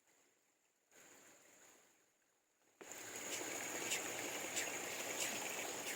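Stream water rushing steadily, with a steady high whine over it and faint ticks about every half second. The sound cuts in suddenly about three seconds in, after near silence.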